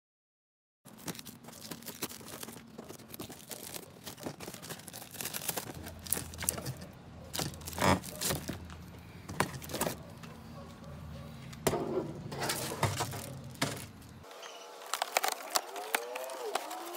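Irregular clattering and clicking, like parts and packaging being handled, over a low steady hum that cuts off suddenly near the end. A few short rising-and-falling tones come in over the last couple of seconds.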